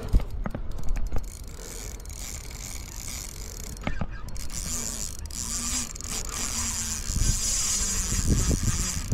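Spinning reel's drag buzzing steadily from about four seconds in as a hooked common carp pulls line off the spool, after a few sharp clicks and knocks from the reel and rod.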